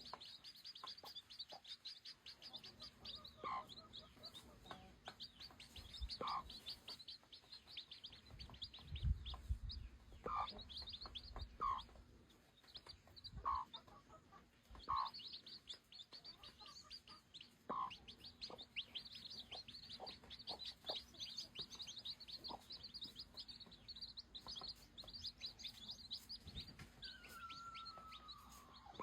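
A crowd of baby chicks peeping rapidly and continuously in high, thin chirps. Lower, short chicken calls cut in every couple of seconds, and a longer falling call comes near the end. There are a few soft low bumps about a third of the way through.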